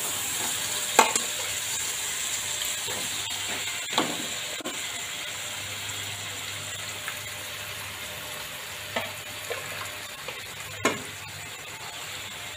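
Boiled meat sizzling as it goes into a pan of sautéed shrimp paste, a steady frying hiss that eases a little over the stretch. A spatula knocks sharply four times as the meat is scooped in and stirred.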